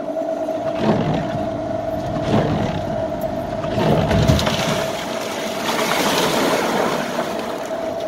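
Vehicle ploughing through deep snow, heard from inside the cab: a steady running hum with a rushing, scraping noise of snow against the body, surging heavier about one, two and a half and four seconds in.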